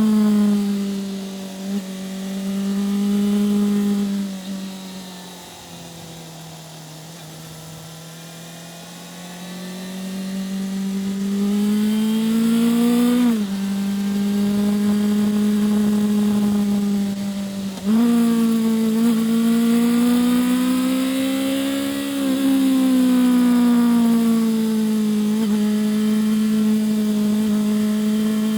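2005 Yamaha FZ6's 600 cc inline-four engine under way. It is steady at first, quietens off the throttle, then pulls again with a rising note. The pitch drops abruptly about 13 seconds in and jumps abruptly about 18 seconds in: gear changes.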